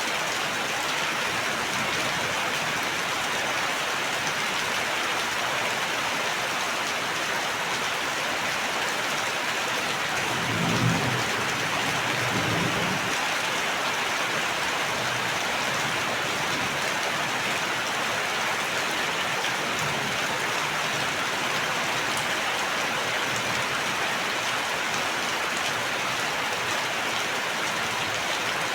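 Steady heavy rain falling on a surface, with a brief low rumble about ten seconds in.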